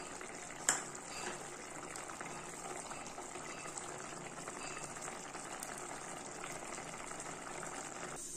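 Rui fish curry gravy bubbling steadily at a simmer in an open pot, with one sharp tap a little under a second in.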